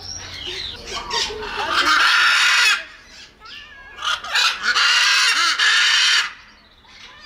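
Macaw squawking: two loud, harsh calls, each a second or more long, about two and four-and-a-half seconds in, with softer, shorter calls around them.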